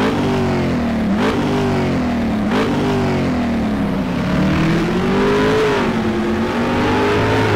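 A vehicle engine revving: its pitch jumps up sharply about a second in and again about two and a half seconds in, falling slowly after each jump, then climbs slowly and eases off near the end.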